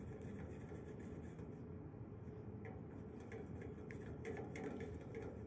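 Rubber spatula stirring and scraping a thick, egg-yolk-enriched sauce in a metal sauté pan: faint light scrapes, a few in the second half, over a steady low background hum.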